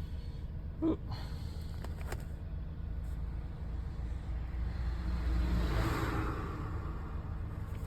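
Steady low rumble of a Nissan Elgrand E51 van idling, with a couple of light clicks about one and two seconds in and a brief rushing swell around five to six seconds in.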